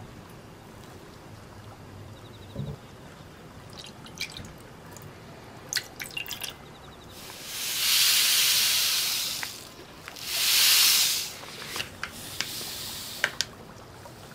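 Small clicks and taps of a silicone spatula and utensils against a stainless saucepan of hot milk tea. In the middle come two loud rushes of hiss, the first about two and a half seconds long and the second about a second and a half.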